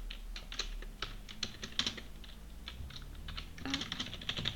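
Computer keyboard keys clicking in irregular runs of typing, with a quick burst of keystrokes near the end.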